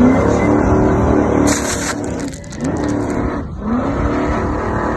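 Go-fast powerboat's engines running hard at speed, with rushing water and wind noise; the engine pitch dips and climbs back twice in the second half, and there is a short hiss about a second and a half in.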